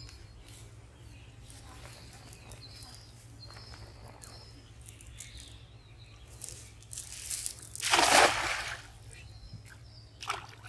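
A cast net thrown onto a pond: a noisy rush that builds about two-thirds of the way in and peaks as the weighted net splashes onto the water, then a shorter, sharper splash just before the end.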